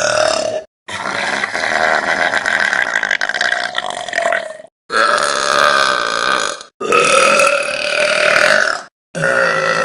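A run of long, drawn-out burps from young women, one after another, each two to four seconds long and cut off abruptly: the tail of one at the start, then four more.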